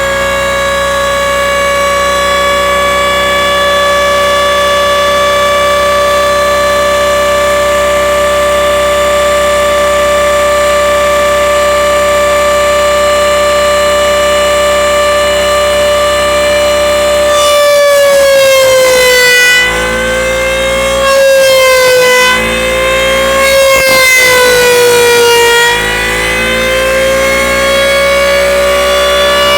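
Gas-engine-driven DISA air raid siren from the late 1940s or early 1950s, sounding a loud, steady wail. The wail holds one pitch for most of the time; about two-thirds of the way through, its pitch begins to sag and climb again several times.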